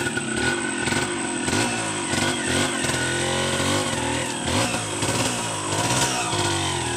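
Yamaha two-stroke enduro motorcycle engine running, its revs rising and falling several times.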